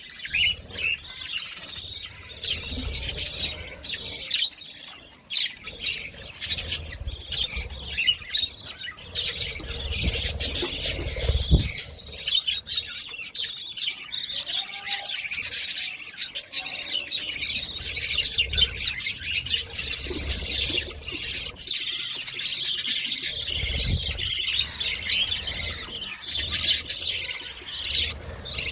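Budgerigars chirping and squeaking in a dense, continuous high-pitched chatter, with a few low thumps.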